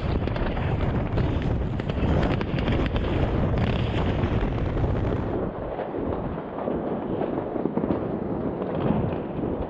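New Year's fireworks going off all around at once: a dense, continuous crackling and popping of firecrackers and rockets over a deep rumble of booms. The deep rumble eases about halfway through while the crackling carries on.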